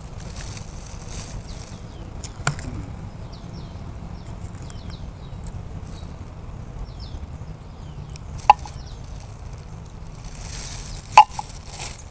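A plastic drink cup knocked down onto a wooden table three times: once a couple of seconds in, then twice near the end, the last the loudest. Small birds chirp in the background.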